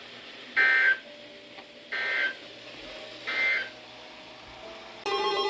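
Three short bursts of Emergency Alert System SAME data tones, the warbling two-tone digital end-of-message code that closes a severe thunderstorm warning. The bursts last about half a second each and come about 1.3 s apart. Just before the end a loud steady tone begins.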